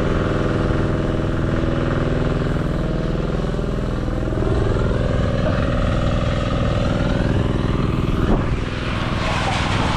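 Portable generator engine running steadily at a constant speed, with one short knock about eight seconds in.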